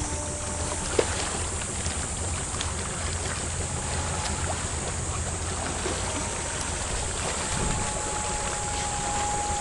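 Wind buffeting the microphone at the seashore, a steady low rumble over the hiss of shallow seawater, with a single sharp click about a second in.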